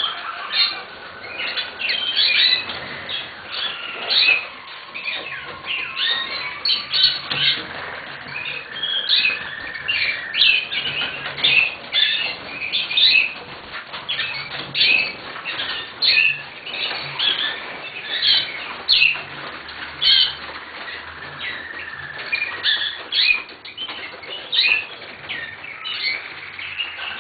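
Waterslager (Malinois) song canary singing: a nearly unbroken run of short chirps and rolling trills.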